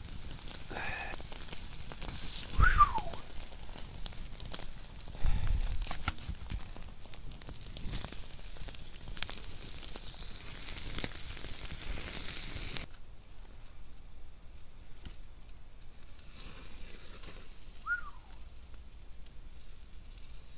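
New York strip steaks sizzling over campfire coals as they char: a steady hiss with many sharp crackles, which drops quieter about two-thirds of the way through. A couple of dull thumps come a few seconds in.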